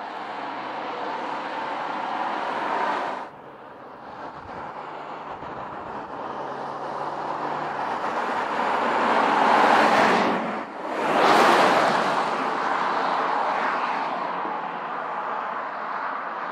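2018 Porsche Cayenne Turbo's twin-turbo V8 and tyres as the SUV drives by: after a steady stretch that cuts off suddenly about three seconds in, the sound builds to a loud peak a little after the middle as it passes, then fades as it moves away.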